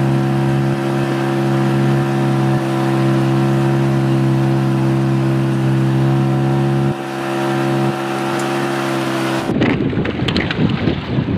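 A steady motor drone holding one even pitch. About nine and a half seconds in it cuts to wind rushing and buffeting on the microphone.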